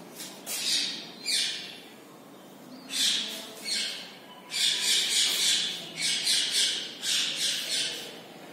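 Marker pen squeaking on a whiteboard as a wavy curve is drawn: a string of short, high squeaks, each falling in pitch. A few come singly at first, then quicker runs follow in the second half.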